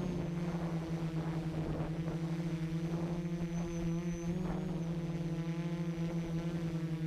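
FPV quadcopter's electric motors and propellers buzzing at a fairly steady throttle while hovering, heard from the onboard camera: a pulsing hum with a faint high whine, its pitch rising briefly about halfway through.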